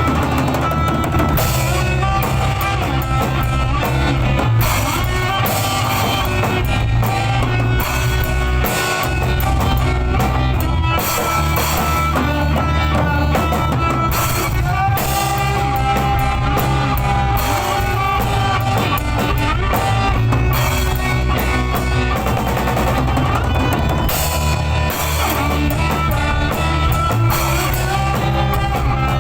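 Rock music with a full drum kit, bass drum and distorted electric guitar, played loud and without a break.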